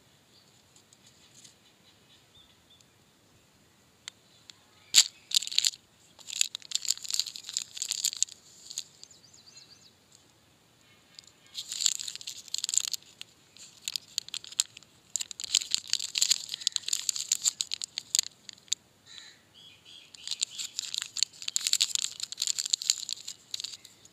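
Plastic candy wrapper crinkling and rustling as it is handled in the fingers, in four bouts of a few seconds each with quiet between them.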